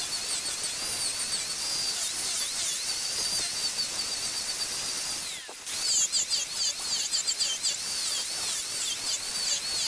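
Angle grinder with an abrasive disc running at high speed against the wood of a vase blank: a high whine that wavers as the disc bites and eases off, with a gritty grinding noise. It drops out briefly about halfway through, then comes back.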